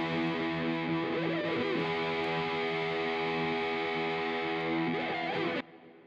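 Outro music: a distorted electric guitar sustaining a chord, with a bending lead phrase about a second in and again near the end. The music cuts off suddenly about five and a half seconds in, leaving a short fading tail.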